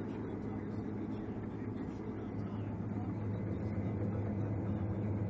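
Harvest machine engine running steadily: a low, even drone that grows slightly louder near the end.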